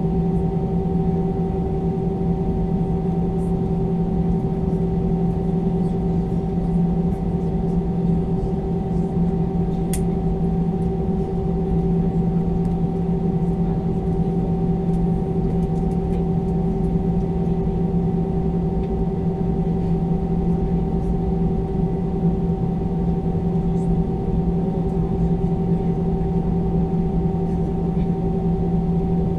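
Steady cabin drone of an Airbus A320-214 taxiing with its CFM56-5B engines at idle: a low hum with a few held tones that does not change.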